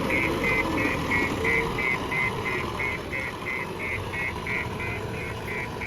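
JCB backhoe loader's diesel engine running steadily, with a warning beeper sounding short high beeps about three times a second.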